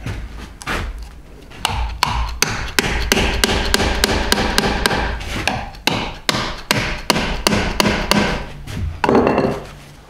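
A hammer drives wooden dowel rods through drilled holes in a timber frame joint with a quick run of sharp blows, several a second, pausing briefly about six seconds in.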